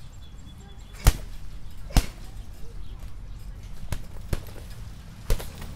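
Punches landing on a punching bag: about five sharp hits at an uneven pace, the loudest about a second and two seconds in, with another near the end.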